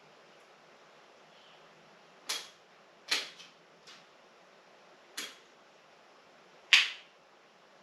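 About six sharp clicks at irregular intervals over a faint steady hiss, the loudest one near the end.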